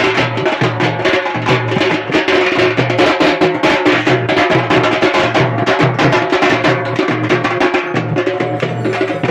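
Loud percussion-heavy music: fast, dense drum strokes over steady low pitched tones, going on without a break.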